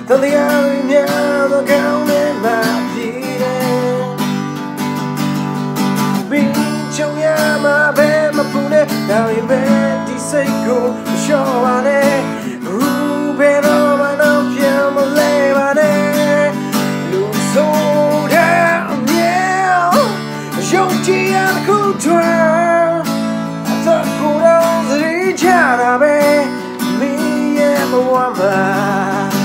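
A man singing a Burmese song to his own strummed acoustic guitar, the voice rising and falling in long sung phrases over steady chord strumming.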